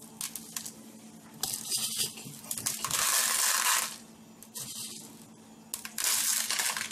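Coarse rock salt scattered by hand into a clear plastic tub to lay a salt bed, the grains hitting and rattling on the plastic in several short bursts, the loudest about three seconds in.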